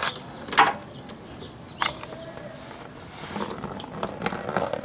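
A few sharp clicks of pliers working the radiator's drain plug loose, then, from about three seconds in, coolant starting to run out of the radiator into a drain pan, growing louder.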